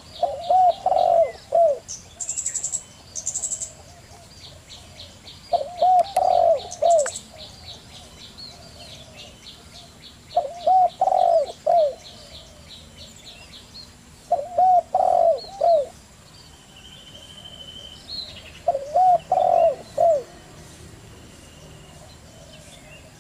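Zebra dove (perkutut) cooing: five short phrases of several quick rising-and-falling coos, one about every four seconds. Small birds chirp high and rapidly in the background.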